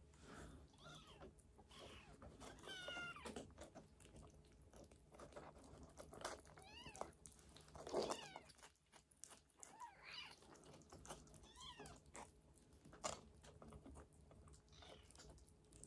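Young kittens giving faint, high little mews several times while they eat, with soft smacking and chewing of wet food.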